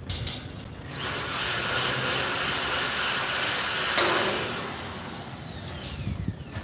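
Electric power drill boring into the lock channel on the greenhouse's steel pipe frame to make holes for fastening it. It runs with a steady whirr for about three seconds, then a sharp click about four seconds in, after which it goes quieter and its pitch falls away.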